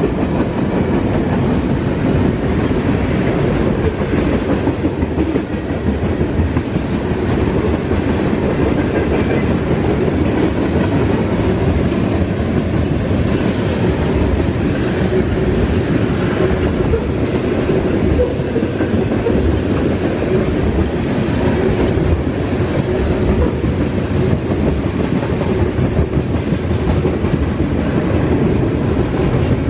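Freight train of covered hoppers and tank cars rolling steadily past at speed: a continuous rumble of steel wheels on the rails, with clacking from the wheels.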